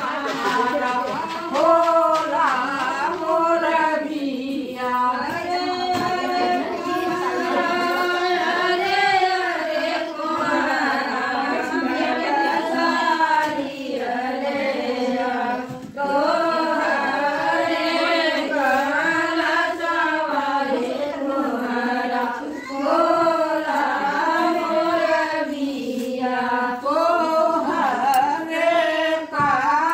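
A group of women singing a traditional Hindi wedding folk song (shaadi ke geet) together, in long held, bending notes with only short breaths between lines.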